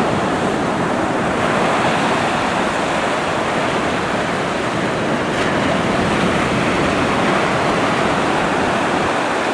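Atlantic Ocean surf breaking on the beach: a steady, powerful wash of waves.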